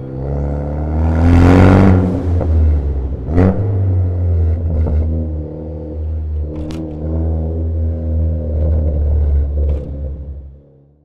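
A car engine running and revving, its pitch rising and falling, with a loud swell about a second and a half in and a sharp, brief surge about three and a half seconds in. It fades out near the end.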